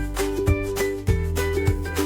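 Upbeat background music: plucked ukulele-like strums over a steady beat.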